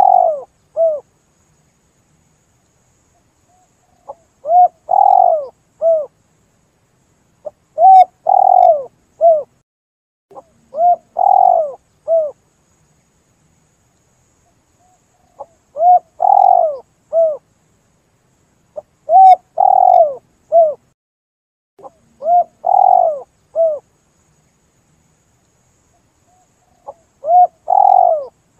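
Spotted dove (tekukur) cooing: a repeated phrase of three or four hollow coo notes, sounding about every three to four seconds, with quiet gaps between phrases.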